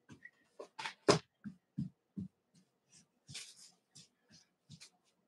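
Scattered soft thumps and taps of a child's feet on the floor as he dances, a few sharper ones about a second in.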